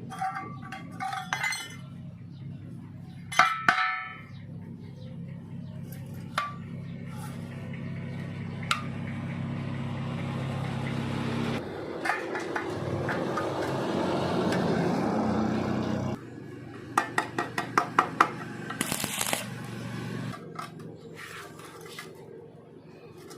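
Steel pieces clinking and being tapped against each other over a steady low hum, with a quick run of about eight sharp metallic taps near the end.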